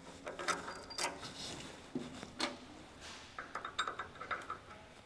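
Steel plow shoe hardware being handled and fitted: a few sharp knocks of the shoe stem in its bracket, then a quick run of light metallic clinks from the spacer washers and retaining pin near the end.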